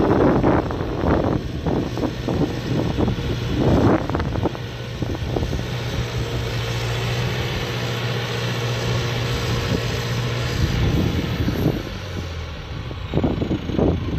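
Valtra C120 tractor's diesel engine running steadily as it pulls a slurry tanker past, with wind buffeting the microphone in the first few seconds.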